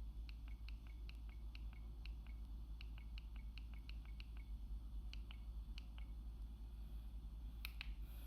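A run of short, sharp, high clicks, irregularly spaced at roughly three a second, stopping about six seconds in, then two louder clicks near the end, over a steady low hum.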